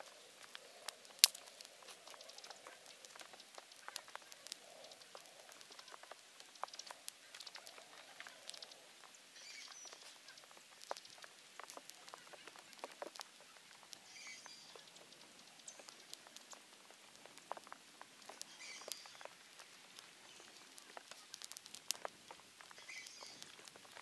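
Small twig campfire crackling, with irregular sharp pops and one loud pop about a second in.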